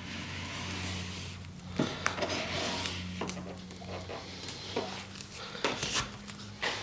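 Scattered light knocks, clicks and rubbing from hands and tools working a wet vinyl stripe on a car body, over a steady low hum.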